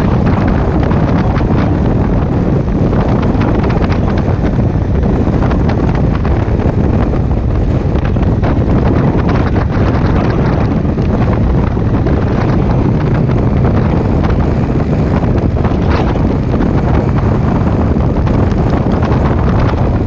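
Loud, steady wind buffeting on the microphone of a Honda Africa Twin CRF1000L DCT motorcycle being ridden at about 50 km/h, mixed with the bike's engine and road noise.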